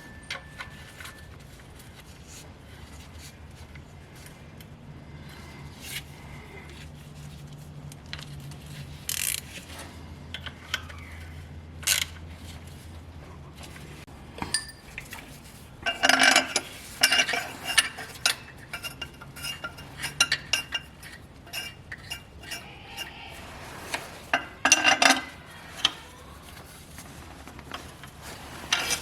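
Metal tools and parts being handled: scattered sharp metallic knocks and clinks, with bursts of ringing clatter about halfway through and again a few seconds before the end.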